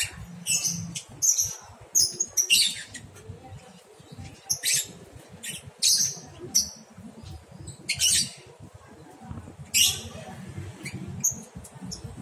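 Lovebirds giving short, shrill chirps and squawks, a dozen or so at irregular intervals.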